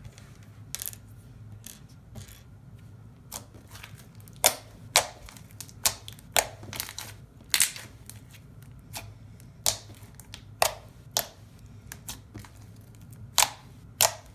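Thick, glossy, clicky slime being pressed and stretched by hand, giving irregular sharp clicks and pops, some in quick pairs, over a low steady hum.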